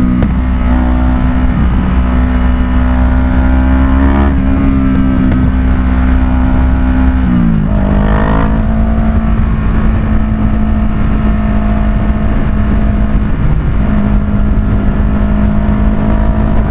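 2014 Kawasaki Ninja 650's parallel-twin engine running at a steady cruise, heard from the rider's position with wind rumbling on the microphone. About seven seconds in, the engine note dips sharply and settles a little lower, and the wind rumble eases.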